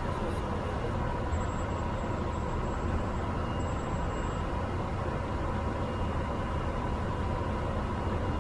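Pilatus bush plane's turboprop engine running steadily in flight, a constant drone with a faint high whine.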